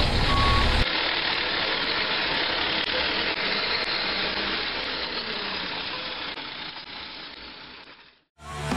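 Truck engine sound effect: a deep rumble for about the first second, then a steady engine noise that fades away over several seconds to silence as the truck drives off.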